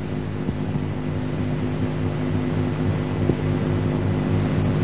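Steady low droning hum over a hiss, slowly growing louder.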